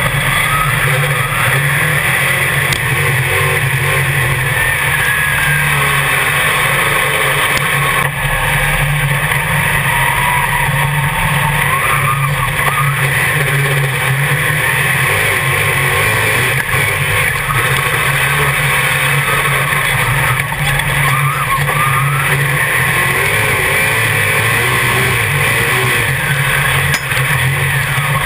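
Dirt modified race car's V8 engine running hard at racing speed, heard from inside the cockpit: loud and continuous, with the revs rising and falling again and again.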